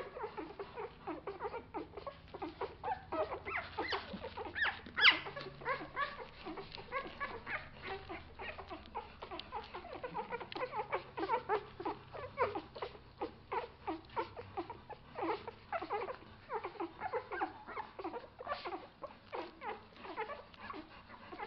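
A litter of 11-day-old Bernese mountain dog puppies nursing, giving a constant stream of short, high squeaks and whimpers, with one louder squeal about five seconds in.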